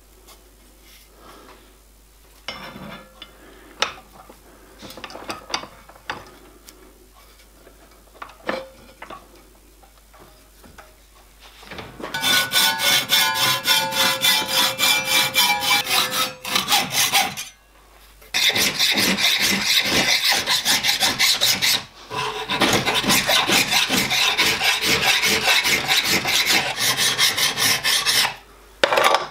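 Light clicks and knocks of metal being handled and clamped in a vise. After about twelve seconds comes a run of fast hacksaw strokes through thin metal sheet, the sheet ringing as it is cut. After a short pause there are long runs of steady rhythmic file strokes on the sheet's edge at the vise jaws.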